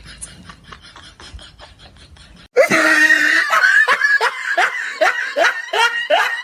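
A person bursts into loud, hearty laughter about two and a half seconds in, a quick run of falling "ha" sounds. Before that there is only a faint, fast, even ticking.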